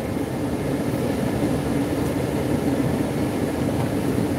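Steady in-cabin rumble of a minivan driving slowly: engine and tyre noise on wet pavement, with an even hum throughout.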